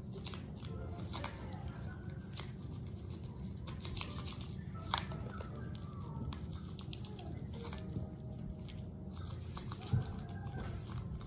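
Seasoning shaken from a shaker onto raw steak and rubbed in by hand: faint scattered patter and taps over a steady low hum, with a sharper tap about five seconds in and a thump near the end.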